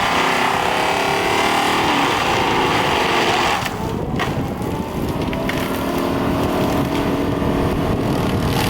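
Seppi Star FC hydraulic mulcher on an excavator running and grinding material, a steady, dense machine noise. The grinding eases for a moment about three and a half seconds in, then builds back up.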